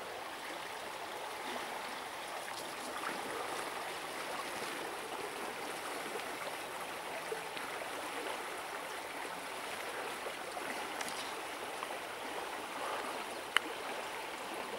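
Small river flowing over stones: a steady, even rush of water throughout. A single sharp click sounds once near the end.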